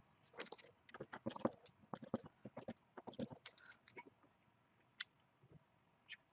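Quiet, irregular clicking and tapping of small hard objects, dense for the first few seconds, then thinning to a few isolated clicks.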